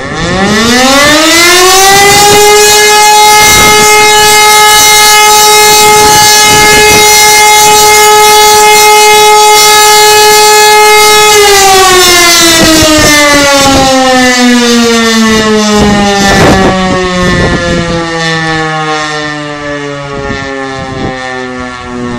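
E57 electromechanical siren sounding one long blast of the fire-brigade alarm signal. It winds up over about two seconds to a steady tone, holds it for about nine seconds, then winds down slowly, its pitch falling through the second half.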